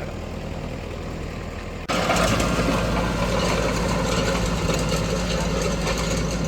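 An engine idling steadily. About two seconds in, the sound jumps suddenly louder and the engine runs on at the higher level.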